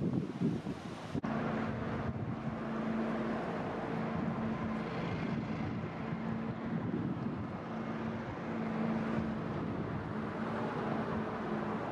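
Motorboat engine running at cruising speed with a steady droning hum, over the wash of water off the hull. The first second or so is wind buffeting the microphone, which cuts off abruptly.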